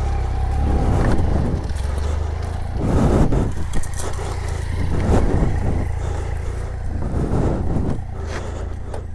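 A road vehicle under way: a steady low engine drone, with noise that swells and fades every couple of seconds.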